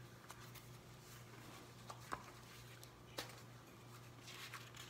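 Faint paper handling: a few soft clicks and rustles as sheets of paper are shuffled on a table, over a low steady hum.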